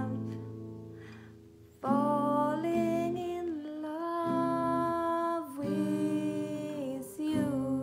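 An acoustic guitar chord is strummed and left to ring out. Then a woman's voice carries the melody without words in long held notes, with another strum near the end.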